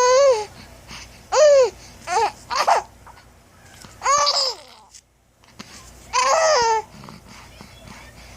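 Five-month-old baby vocalizing in about six short, high-pitched babbles, each rising and then falling in pitch, with brief pauses between them.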